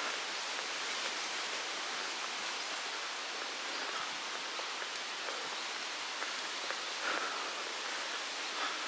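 Steady outdoor ambient hiss, with a few faint short chirps about seven seconds in.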